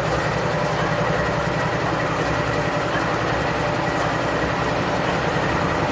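Canadian Pacific diesel locomotive idling, a steady low rumble with a constant high whine over it.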